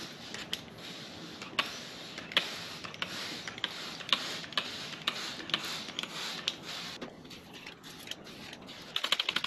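Hand trigger spray bottle pumped again and again, each squeeze a click followed by a short hiss of water spray, about two a second. Near the end comes a quick run of clicks.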